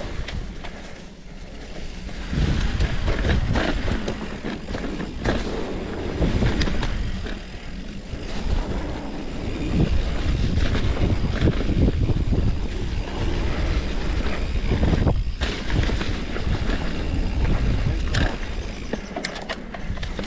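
Mountain bike riding down a leaf-covered dirt singletrack: a loud rumble of wind on the action-camera microphone and tyres rolling over dirt and leaves, with sharp rattles and knocks from the bike over bumps. It rises and falls as the bike speeds up and slows.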